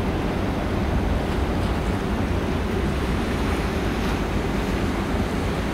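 Steady low rumble of a large ferry's engines and machinery, with wind blowing across the microphone on the open deck.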